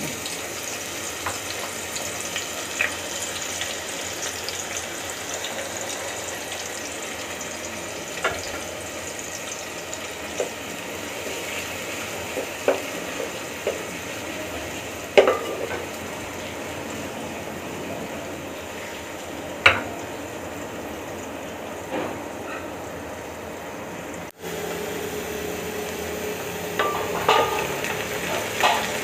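Sliced onions sizzling steadily as they fry in hot oil in a pot, with a spatula stirring them and now and then knocking and scraping against the pot.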